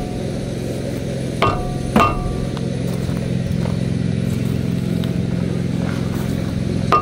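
Two sharp metallic clangs with a short ring, about half a second apart, from pounding on a seized front hub and wheel bearing. A steady low hum runs underneath.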